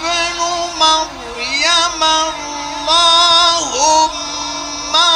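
Male Quran reciter's voice chanting in the ornamented mujawwad style, drawing out long held notes in phrases. The pitch swoops down and back up about a second in and again near the end.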